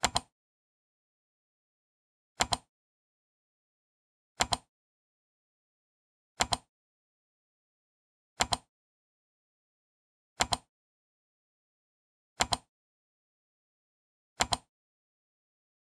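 Eight sharp double clicks repeating evenly about every two seconds, with dead silence between them.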